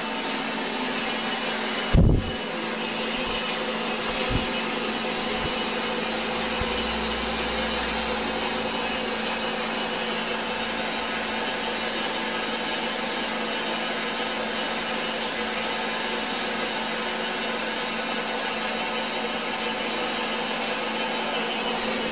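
Steady mechanical whirr of an electric motor belt-driving a model triple-expansion steam engine over, with a low thump about two seconds in.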